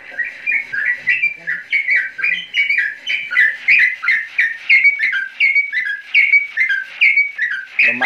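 Recorded birdsong played loud through a simple homemade amplifier and a bare TV-type loudspeaker: a rapid run of short chirping notes, each falling in pitch, about three a second. It sounds loud and clear ("lantang").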